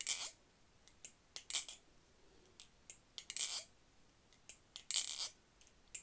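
Balisong (butterfly knife) being flipped by hand: about four quick metallic clattering flurries of the handles swinging and clacking on their pivots, with a few single clicks between them. This is the sound of bushings freshly oiled and worked in, which sounds really good.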